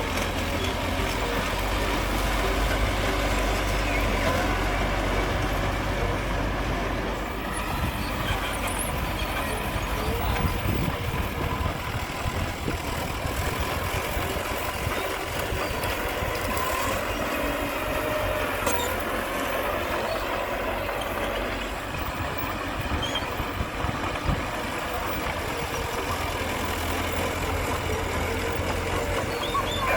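Diesel engines of heavy earthmoving machinery, bulldozer and dump trucks, running steadily with a low rumble that eases a few seconds in and builds again near the end.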